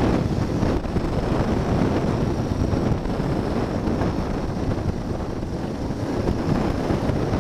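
Suzuki DR650 single-cylinder dirt bike running steadily along a gravel road, mostly covered by wind buffeting the microphone.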